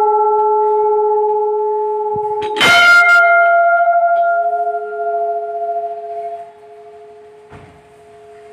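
Temple bell ringing on from a strike just before, struck again a little under three seconds in, its ring slowly dying away.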